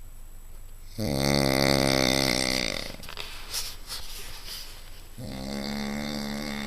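A man snoring heavily: two long, pitched snores, the first starting about a second in and the louder of the two, the second starting about five seconds in, with quieter breathing between.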